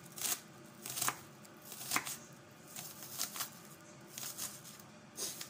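Chef's knife mincing red onion on a wooden cutting board: irregular sharp knocks of the blade striking the board, about one or two a second.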